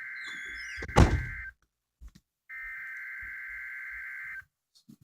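EAS Required Weekly Test header (SAME digital data) through a receiver's speaker, a buzzy two-tone warble. One burst runs until about a second and a half in, and after a second's gap a second burst lasts about two seconds. A loud thump lands about a second in, over the first burst.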